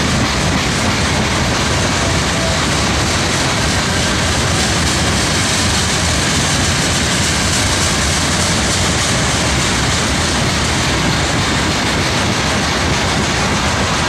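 Freight train of autorack cars, with tank cars behind, rolling past: a loud, steady rush and rumble of steel wheels on the rails.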